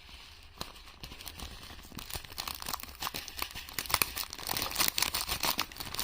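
Crinkling and crackling as something is handled: a dense run of small clicks that grows louder from about two seconds in.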